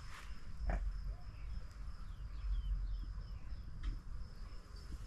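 Insects, crickets or similar, keep up a steady high-pitched drone, over a low rumble. A few faint short chirps come in the middle, and there is a soft knock under a second in and another near the end.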